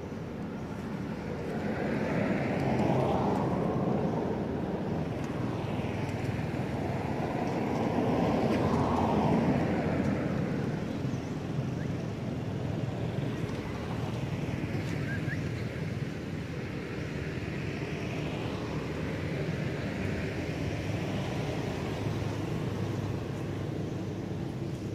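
Motor vehicles passing: a rumble that swells and fades, loudest about three and about nine seconds in.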